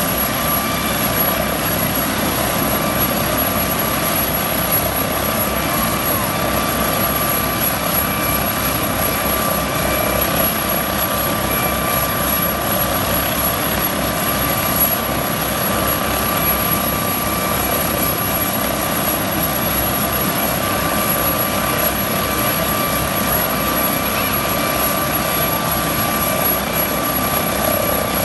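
MD 902 Explorer air ambulance helicopter running on the ground with its main rotor turning: a steady turbine whine over a rapid, even rotor beat.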